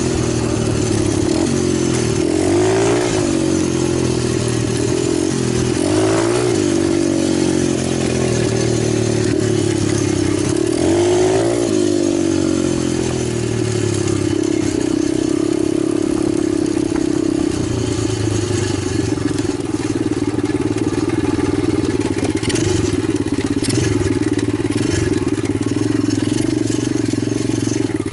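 Italjet 125cc pit bike engine revving up and dropping back about four times, then running at a steady speed; a few sharp clicks near the end.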